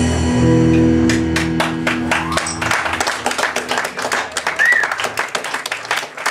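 The final held electric guitar notes of a live improvised band ring and fade out over the first few seconds as the audience breaks into applause. The clapping keeps going after the notes end, with a short whistle a little under five seconds in.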